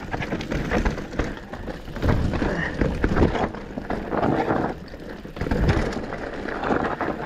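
Mountain bike rolling fast down a dirt trail: tyres and frame rattling over the ground, with many short knocks and clatters as it hits bumps.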